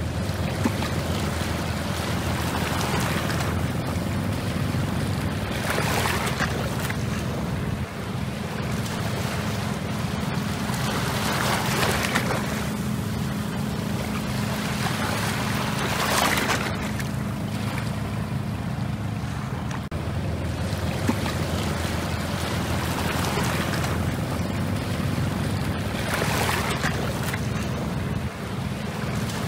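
Waves washing against a rocky shore, swelling in surges every few seconds, with wind on the microphone over a steady low boat-engine drone.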